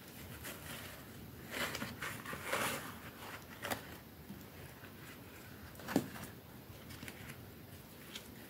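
Hands pulling and peeling apart a soft yellow piece of food, with crackly tearing and rustling from about one and a half to three seconds in. There is a sharp click about six seconds in.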